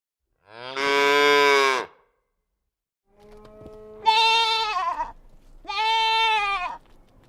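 A cow moos once, a low call of about a second and a half. Then a sheep gives two higher, shorter bleats about two seconds apart.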